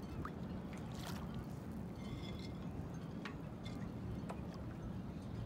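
Rigging on moored sailboats ringing against the masts: a few short metallic pings and brief high rings scattered over a steady low wash of choppy water.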